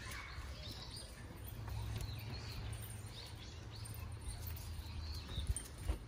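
Small birds chirping over and over in short calls, over a steady low outdoor rumble, with two soft thumps near the end.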